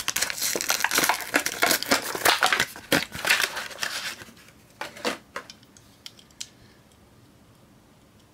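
Clear plastic blister pack crinkling and crackling as it is pulled and torn away from its card, for about four seconds, followed by a few light clicks.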